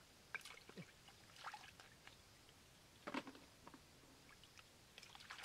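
Faint splashing and trickling of shallow floodwater as hands grope through the mud and water, with a few short soft knocks, the most distinct about three seconds in.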